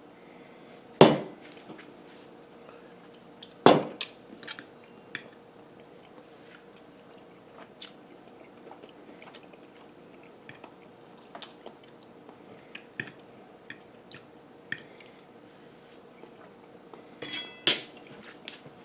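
Metal fork clinking on a ceramic plate: sharp clinks about a second in and near four seconds, a loud pair near the end as it is set down, with lighter ticks and chewing between.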